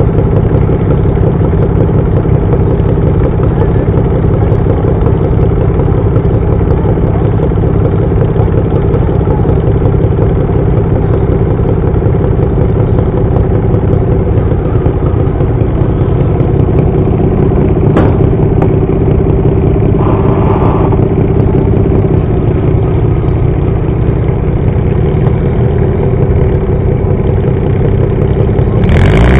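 Pulling garden tractor's engine idling steadily while hooked to the weight-transfer sled, with one sharp click about two-thirds of the way through. At the very end the engine suddenly revs up.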